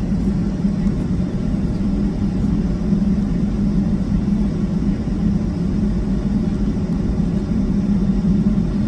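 Steady cabin drone of a Boeing 757-200 taxiing onto the runway: its jet engines at low taxi power, heard through the fuselage as an even low hum and rumble.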